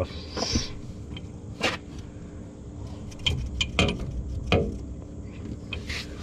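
Light metallic clicks and knocks, several in a row at uneven spacing, as a new gas-charged shock absorber is worked by hand into its lower mount, over a faint low steady hum.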